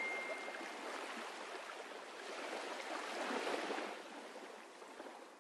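Soft wash of water like waves or a stream, swelling about three seconds in and then fading away. A single chime tone rings out in the first second.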